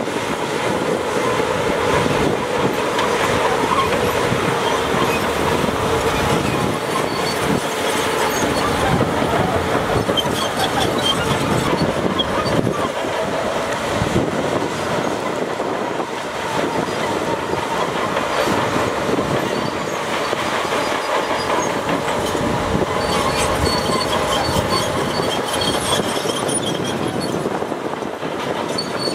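Shantui crawler bulldozer working: its diesel engine runs steadily under the continuous metallic clatter of its steel tracks, with a faint steady whine.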